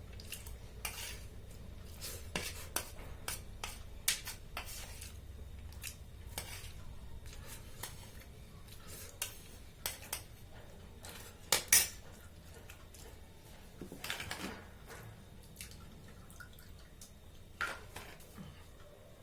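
Cutlery clinking and scraping on a plate while noodles are eaten: irregular light clicks throughout, a louder double clink a little before the middle and a short scrape a few seconds later. A faint steady low hum lies underneath.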